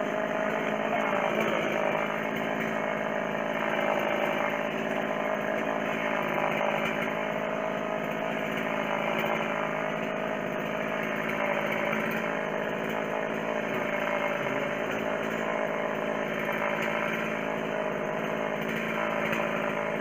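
Chainsaw engine running steadily, its pitch dipping and recovering slightly every couple of seconds as it cuts.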